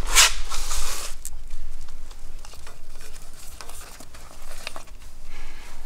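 Rustling and handling noise as a hand works a rabbit doll out from a wire cage. It is loudest in the first second, then drops to softer rustles and a few light clicks.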